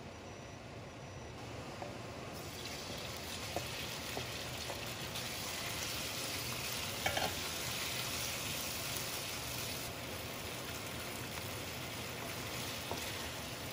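Marinated pork slices sizzling in hot oil in a wok while being stirred with a wooden spatula; the sizzle builds about two seconds in as the meat goes into the oil, with a few light clicks of the spatula against the pan.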